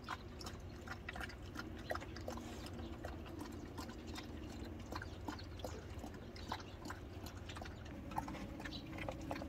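A dog lapping and chewing a liquid meal of seaweed soup mixed with milk from a plastic bowl, a run of irregular wet clicks and slurps.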